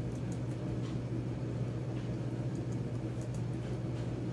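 Steady low hum of background room noise, with a few faint short clicks.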